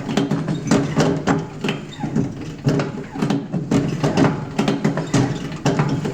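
Nautilus StairMaster stair-climber machine running, with rhythmic knocking about twice a second over a humming drone. This is the abnormal noise the machine is listed as having.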